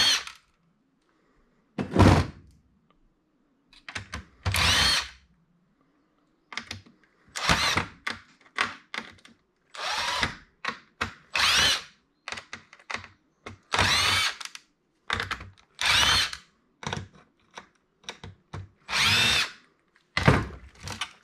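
Cordless drill/driver backing screws out of a POS terminal's circuit board in more than a dozen short bursts, the motor whining up and then down in pitch with each trigger pull.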